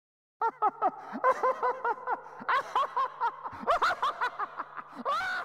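A rapid, laugh-like chattering voice: a quick run of short calls rising and falling in pitch, several a second, over a faint steady hum. It starts about half a second in.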